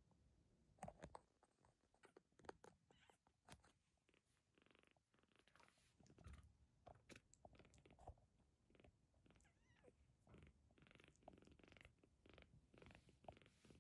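A tiny kitten purring faintly, mixed with soft scuffs and rustles as it moves about on a fleece blanket.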